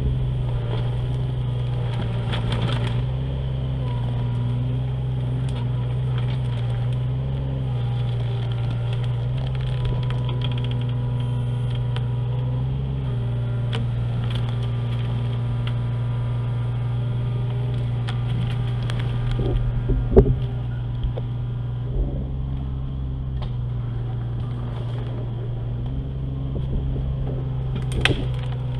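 Kubota KX-018 mini excavator's engine running steadily, its note stepping down and back up a few times as the hydraulics are worked. A sharp knock comes about two-thirds of the way in, and another near the end.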